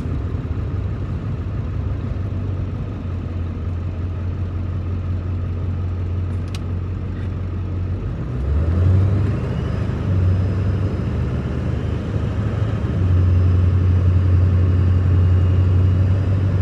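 Engine and road noise heard from inside a moving car: a steady low drone that shifts about halfway through and grows louder for the last few seconds. There is a single faint click about six seconds in.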